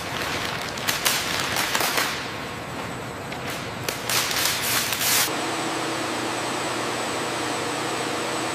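Clear plastic film crinkling and rustling as gloved hands smooth it over a carbon-fibre part, with irregular crackles. About five seconds in it stops abruptly and gives way to a steady room or machine hum with a faint high whine.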